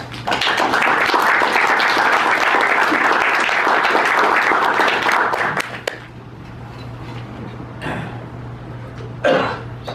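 Audience applauding at the end of a conference talk for about five seconds, then dying away, with a short louder sound near the end.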